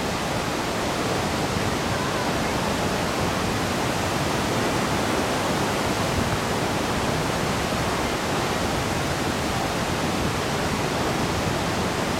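The wide Doupotang waterfall, a steady, even rush of falling water.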